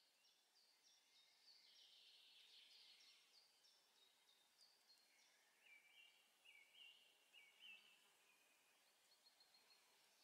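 Near silence with faint birdsong: runs of short, high chirping notes that repeat over and over.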